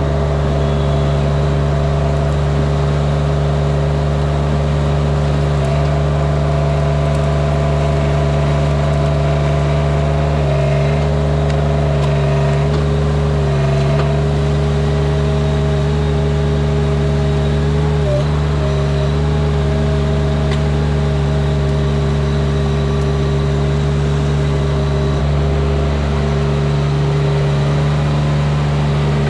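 Engine of a Derette V1000 compact loader running steadily at constant speed, with a few brief small changes in pitch as it takes load.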